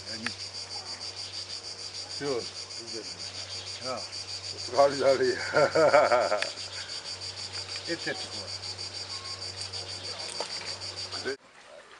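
Insects chirping in a steady, fast-pulsing high trill. A person's voice rises over it briefly about five seconds in, and all of it cuts off abruptly shortly before the end.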